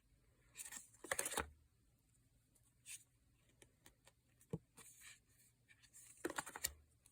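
Tarot cards being handled: a few brief, faint sliding and rustling sounds of card stock against card stock, with a small click about halfway through.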